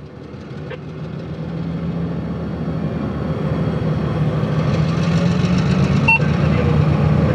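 Diesel engine of a switcher locomotive running with a steady low drone, growing steadily louder as it approaches. A couple of brief sharp clicks are heard, one near the start and one near the end.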